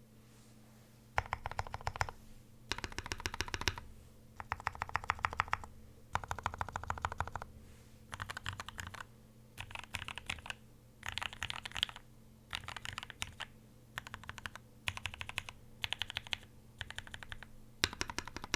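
Typing on a Quantrik Kyuu mechanical keyboard with lubed Gateron Red Ink v2 linear switches in a brass plate. It comes as bursts of rapid keystrokes, each lasting one to two seconds, with short pauses between them, starting about a second in.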